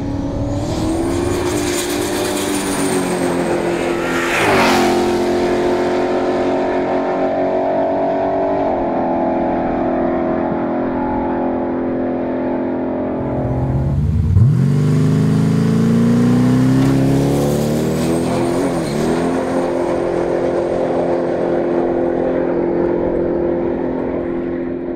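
A twin-turbocharged LSX V8 race car engine running hard. Its pitch holds and steps several times, with a sharp burst about four seconds in, and it drops and climbs again about two-thirds of the way through.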